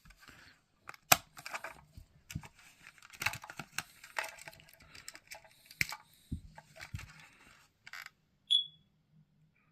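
Scattered handling clicks and rustles, then near the end a single short, high-pitched beep from a Prosafe photoelectric smoke alarm's piezo sounder.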